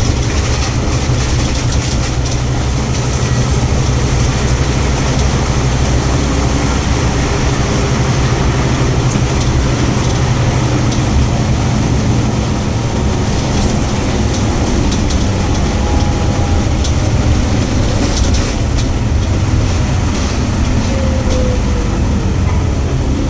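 Scania OmniCity single-deck bus heard from inside the passenger saloon while it drives: a steady low engine drone under road and cabin noise, with scattered small clicks and rattles.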